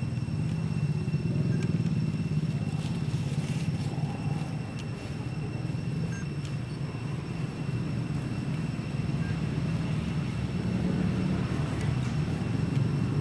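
A steady low rumble of a running engine, with faint thin high tones above it.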